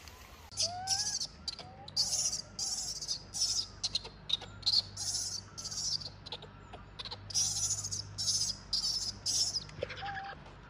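Repeated high-pitched chirping pulses, roughly two a second, from birds or insects in the trees, stopping near the end. Under them are faint rising-and-falling squeaks from the infant macaque.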